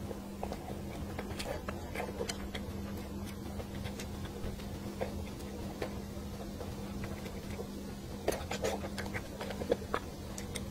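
Close-miked eating: soft mouth and chewing sounds with scattered light clicks as chopsticks pick at a braised fish, the clicks thickest near the end, over a steady low hum.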